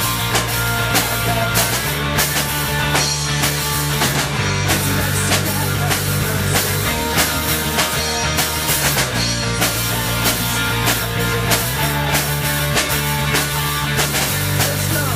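Rock band playing: a drum kit keeps a steady, driving beat over a bass line that moves to a new note every two to three seconds, with guitar filling the middle.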